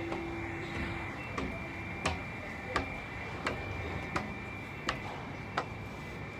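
Footsteps on a hard walkway, sharp clicks about one step every 0.7 seconds, over a faint steady high-pitched tone.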